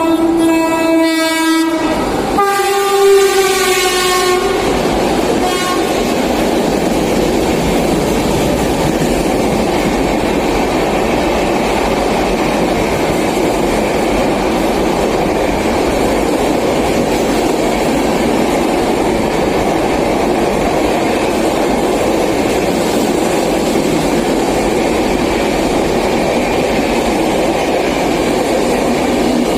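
Express train's locomotive horn sounds in two long blasts as it approaches, the second dropping slightly in pitch as the locomotive passes. Then comes the steady rumble and clatter of the Darbhanga Humsafar Express coaches running through the station at full speed.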